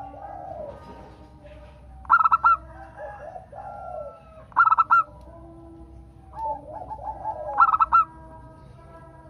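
Zebra dove (perkutut) cooing. Three loud bursts of quick, rippling notes come about every two and a half seconds, with softer, lower, rolling coos in between.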